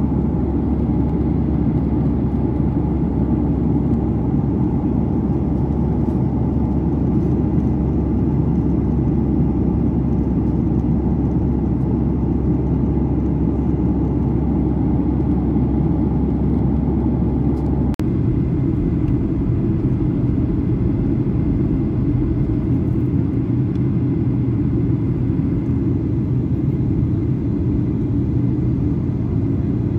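Cabin noise inside a Boeing 737-800: a steady low rumble of the engines and airflow. About two-thirds of the way through, after a faint click, the deepest hum drops away and the rumble changes tone.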